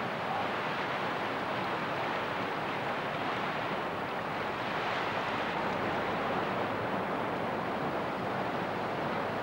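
Whitewater rapids of a fast river rushing steadily over rocks.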